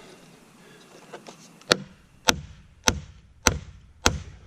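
Five evenly spaced hammer blows, about one every 0.6 seconds, each with a short ring, driving an old wheel bearing out of a side-by-side's spindle. The bearing is moving under the blows.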